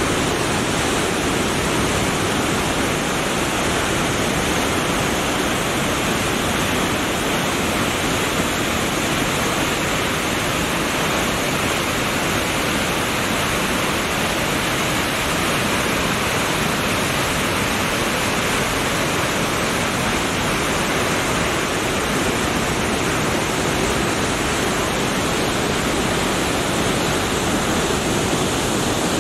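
Large waterfall plunging into its pool, a loud, steady rush of falling water and spray with no let-up.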